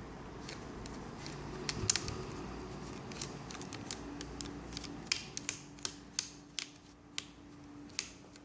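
Small sharp clicks and taps from the plastic and metal parts of a Toshiba NB550D netbook being taken apart, loudest about two seconds in, then coming about twice a second through the second half, over a faint steady hum.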